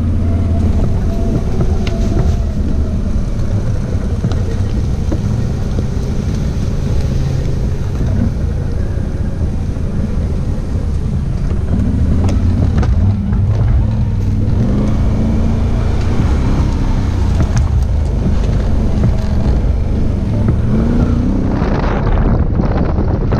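Quad bike (ATV) engine running while riding, its pitch rising and falling with the throttle, with wind on the microphone. The sound changes abruptly near the end.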